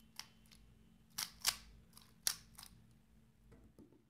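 3x3x3 Rubik's cube being turned through an algorithm: a quick series of about eight sharp plastic clicks as the layers snap round, loudest about a second and a half in.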